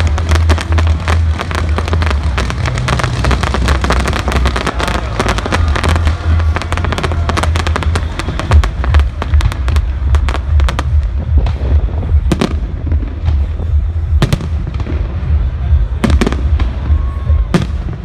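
Fireworks going off: a dense crackle of many small bursts for the first half, thinning to a few separate sharp bangs in the second half, over a steady deep rumble.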